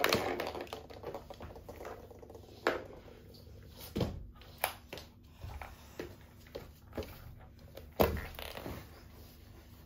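Hard plastic toy figures and pieces being handled, clicking and knocking against each other and against a wooden floor. There are a handful of separate knocks, the loudest at the very start and about eight seconds in.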